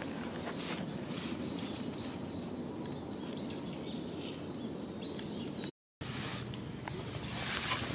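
Outdoor ambience: a steady low rumble of background noise with faint bird chirps over it and a few scattered small ticks. The sound drops out completely for a split second just before the sixth second, then resumes.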